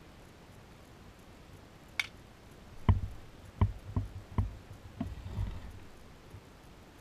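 Handling noises from a circular sock knitting machine: one sharp click, then, about a second later, a run of about six knocks and clicks as the needles and metal parts are worked by hand.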